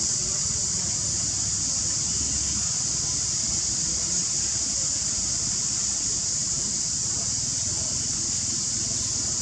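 A steady, high-pitched hiss with a low rumble beneath it.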